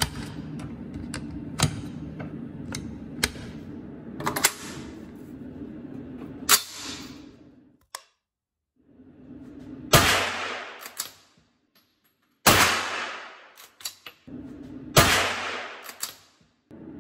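Clicks of 9mm cartridges being pressed into a magazine and of the rifle's safety selector, then a T2 9mm straight-pull rifle fired in an indoor range: loud shots about two and a half seconds apart, each echoing, with metallic clicks of the straight-pull handle being cycled between them.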